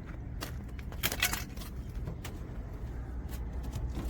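Scattered light clicks and rattles, with a small cluster about a second in, as the trunk of a 2012 Honda Civic is opened, over a steady low hum.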